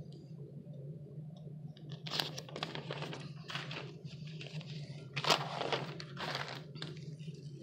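Paper rustling and crinkling in irregular bursts as notebook pages are handled and turned, loudest about five seconds in, over a steady low hum.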